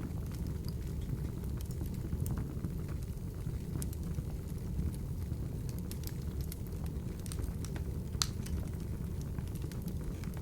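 Open wood fire burning in a fireplace: a steady low rushing of flames with frequent irregular crackles and pops, one sharper pop about eight seconds in.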